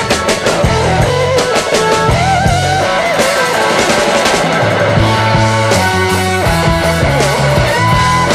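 Rock music with electric guitar and drums: a bending guitar melody over a steady bass line and beat.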